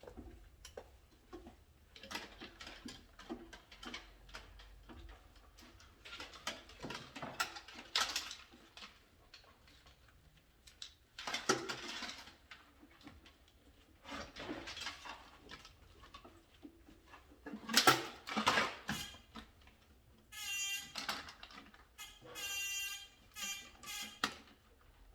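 Irregular clicks, taps and scrapes of hand work with small tools and parts, typical of electrical wiring practice. Two short squeaky pitched sounds come near the end.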